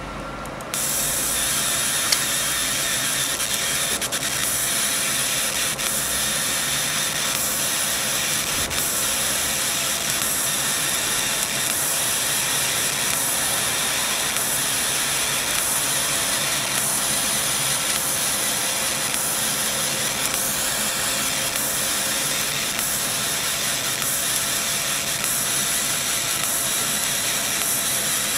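CO2 laser cutter cutting 0.3 mm brass sheet: a loud, steady hiss of air blowing at the cutting head switches on suddenly about a second in, over a low, even machine hum.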